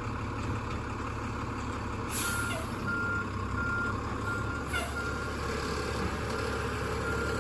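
Garbage truck's diesel engine running with its reversing alarm beeping, about two beeps a second, starting about two seconds in. A short air hiss comes as the beeping begins.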